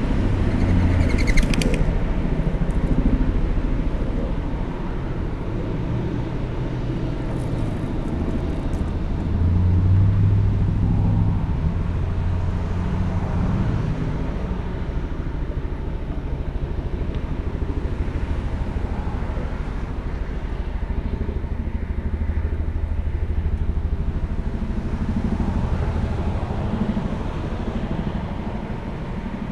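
A motor engine running, a low rumble that swells and eases without stopping.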